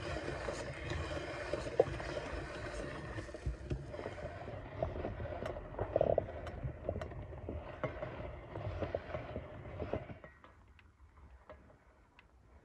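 Hand-cranked metal meat grinder mincing whole feijoas: a steady crunching grind with sharp clicks as the crank turns. It stops about ten seconds in, leaving only a few faint light clicks.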